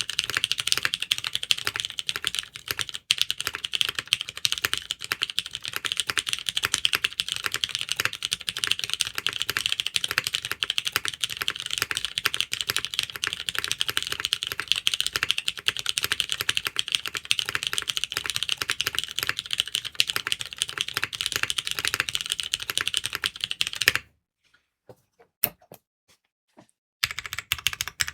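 Fast, continuous typing on a Mode SixtyFive mechanical keyboard with broken-in, lubed Cherry MX2A Brown tactile switches on a POM plate, under DCS-profile PBT keycaps. Near the end the typing pauses for about three seconds with only a few single keystrokes, then starts again.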